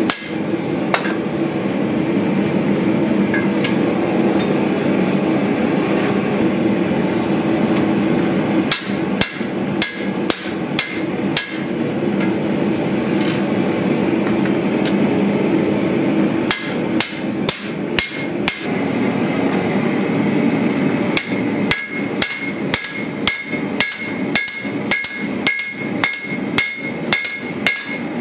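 Hand hammer striking a red-hot steel bowie knife blade on an anvil. The blows come in scattered spells at first, then in a steady run of about two a second over the last several seconds, each with a high ring from the anvil. A steady rushing noise runs underneath between the spells of hammering.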